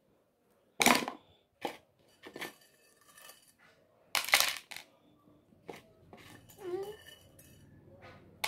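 Pieces of ginger, garlic and whole cloves dropped by hand into a white ceramic bowl, clattering against it in a string of sharp clinks; the loudest come about one second and four seconds in, with softer ticks between.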